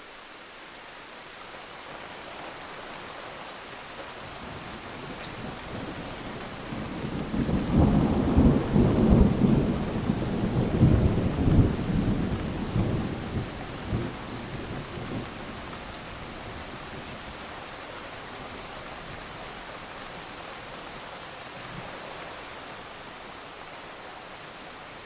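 Steady rain with a long roll of thunder: the rumble builds about five seconds in, is loudest for several seconds, then fades back under the rain.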